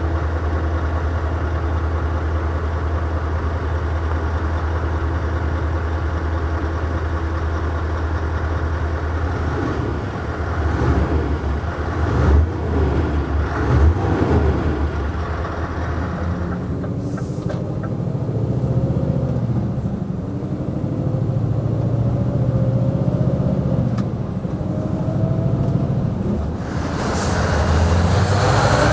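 Scania S650's 16-litre V8 truck engine on its stock exhaust, idling steadily, then revved several times about ten to fifteen seconds in. After that it runs under way with its pitch rising and falling through the gears, growing louder near the end.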